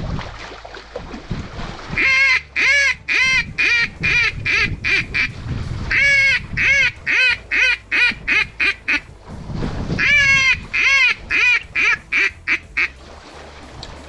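A Zink mallard duck call blown in three runs of about eight to ten quacks each, every run opening with a longer quack and then quickening, a hen mallard calling to bring passing mallards in to the decoys.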